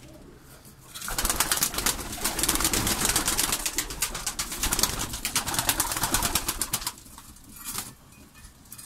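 Domestic pigeons cooing in a loft, under a loud rustling, scraping noise from about a second in until about seven seconds.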